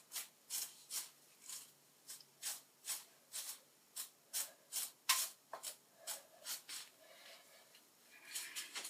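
A hairbrush drawn through teased hair in quick, even strokes, about two a second, brushing out the teasing. The strokes stop for a moment near the end.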